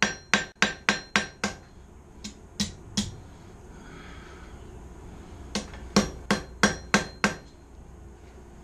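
Hand hammer striking a small forged steel J hook on the anvil in quick, light blows that ring, straightening and truing the hook. A run of strikes, a pause of a couple of seconds, then another quick run of about seven blows.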